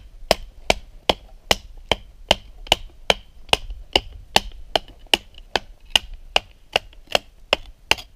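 A wooden baton striking the spine of a carbon-steel Mora Garberg knife in a steady rhythm of about two and a half blows a second, driving the blade down through a twisted piece of pine to split it.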